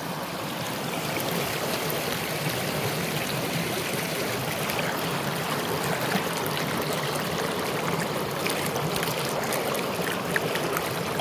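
Shallow river running over rocks, heard up close just above the water surface: a steady rushing and trickling.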